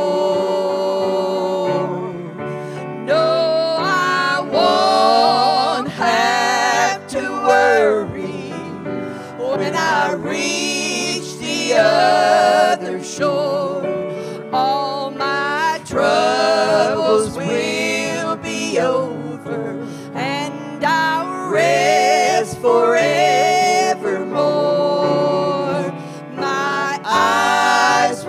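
Two women singing an old gospel song into microphones, with grand piano accompaniment.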